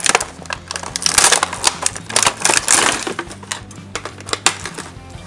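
Toy packaging being opened: the cardboard box and clear plastic tray crackle and click irregularly as they are handled, with scissors snipping the plastic in the second half.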